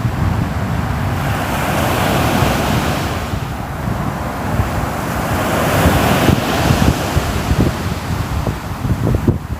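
Sea waves breaking and washing up on the shore, the surf swelling twice, about two seconds in and again around six seconds, over a steady low rumble.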